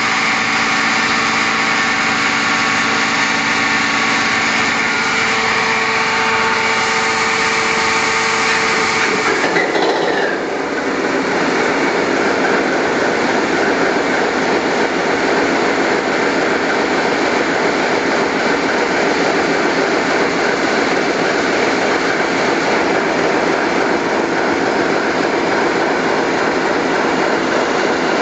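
Niigata 6L28HX six-cylinder medium-speed marine diesel engine running steadily, freshly started after a major overhaul. A steady multi-tone whine rides on the engine noise for about the first ten seconds, then gives way to an even, rough mechanical din.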